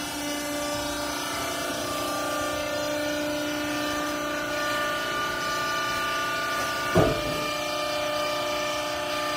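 Hydraulic power unit of a vertical clothes baler running, a steady machine whine made of several level tones, with a single clunk about seven seconds in.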